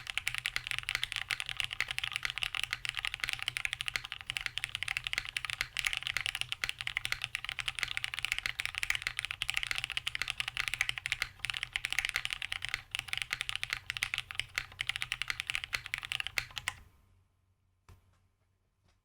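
Continuous dense typing on a plateless Cinque 55 mechanical keyboard with Cherry Hyperglide MX Black linear switches and GMK Mizu keycaps. The typing stops about seventeen seconds in, with one faint click a second later.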